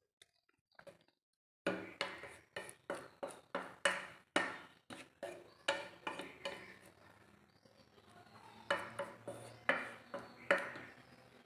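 Wooden spatula scraping and knocking against a nonstick kadai while stirring grated carrots in milk: a quick run of strokes, about two a second, after a quiet start, easing off and then a few more strokes near the end.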